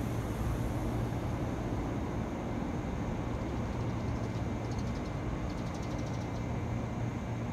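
JR 211 series electric train standing at the platform, giving off a steady low hum.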